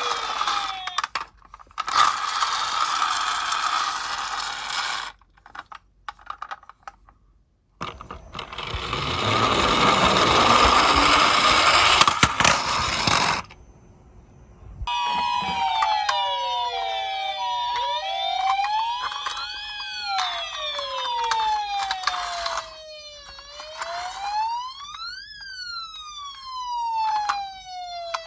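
Toy minicars rolling down a slope with a loud rushing rattle, the second run swelling louder. From about halfway, several electronic toy sirens overlap, wailing up and down in pitch.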